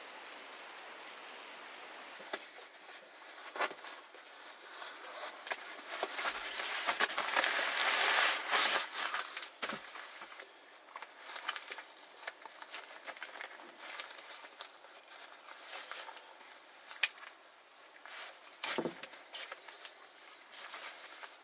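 Camping gear being handled on a car's cargo floor: a sleeping mat rustling and small plastic fittings clicking and knocking. The rustling grows to a loud burst about eight seconds in, then gives way to scattered clicks.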